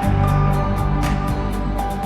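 Background music: sustained synth chords over a light, regular beat.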